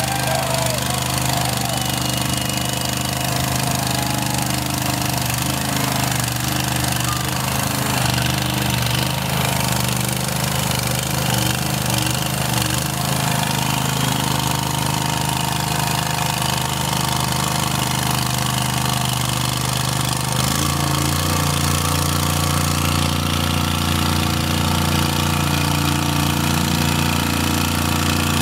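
Monster lawn mower's engine running steadily through its big open exhaust pipe as it drives through pond water on paddle tires, with water splashing. The engine note changes about twenty seconds in.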